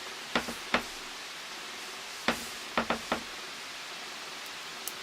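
Small sharp metallic clicks as tweezers pick pin-tumbler pins (serrated spools) out of a padlock's cylinder. There are a few clicks in two clusters, over a faint steady hiss.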